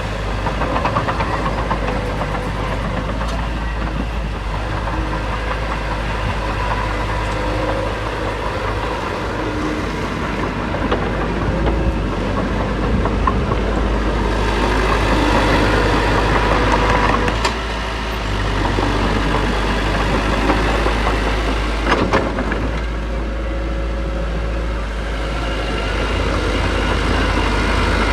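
Heavy earthmoving machinery running steadily, its diesel engine note swelling a little at times, with one sharp metallic knock late on.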